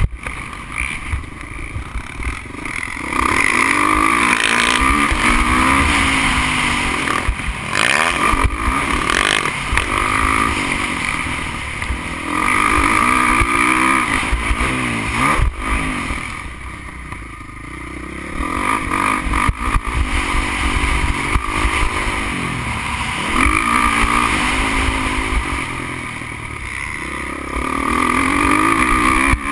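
Motocross bike engine heard from on board, revving up hard and dropping back over and over as the rider accelerates, shifts and backs off for corners. The loudest stretches are long pulls lasting a few seconds each.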